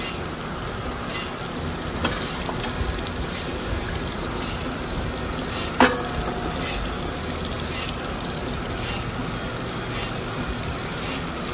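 Storm Vulcan 15AW crankshaft grinder's wheel grinding an off-centre rod journal of a Chevrolet 235 crankshaft under flowing coolant: a steady hiss and splash with a faint pulse about every three-quarters of a second, as the wheel touches only the bottom side of the offset journal each turn. A single sharp clink about six seconds in.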